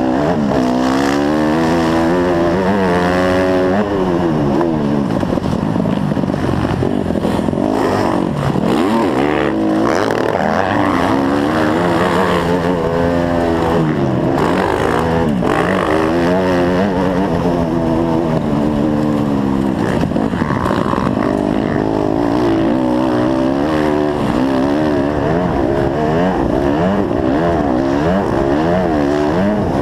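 Dirt bike engine being ridden hard, its pitch repeatedly rising as the throttle opens and falling as the rider shifts or rolls off, over steady rushing noise.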